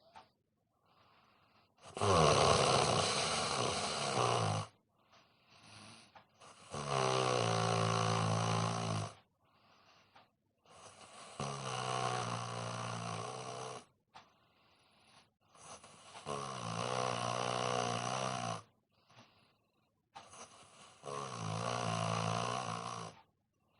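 A man snoring in deep sleep: five long, loud snores on the in-breath, one about every four to five seconds, with faint breathing between them.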